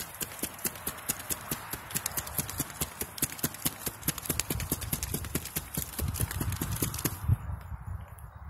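A cardboard box flapped rapidly to fan a smouldering wood fire: an even run of sharp flaps, several a second, with low gusts of air. The fanning stops about seven seconds in.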